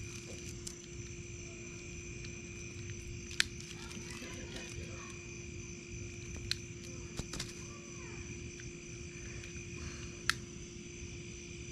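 Evening chorus of insects trilling steadily at several high pitches, with a few sharp clicks about three seconds apart while a wood fire is being lit.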